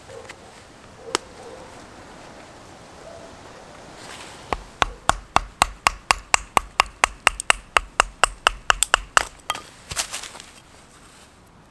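A knife chopping into a thin wooden stick in quick, even knocks, about five a second, for roughly five seconds, starting a few seconds in. A couple of lone clicks come before it.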